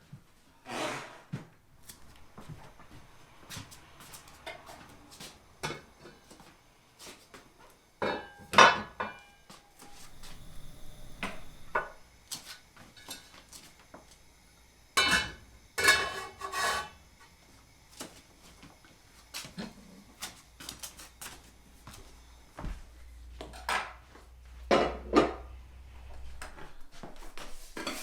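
Kitchen clatter: dishes, pots and utensils knocking and scraping at irregular moments, with louder clanks in a few clusters.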